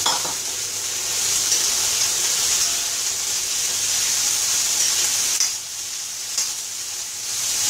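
Chopped beans and carrots sizzling in hot oil in a kadai as they are sautéed dry, without water, and stirred with a metal spoon. A few light clicks of the spoon against the pan sound over the steady sizzle. The sizzle eases a little about two thirds of the way through, then picks up again near the end.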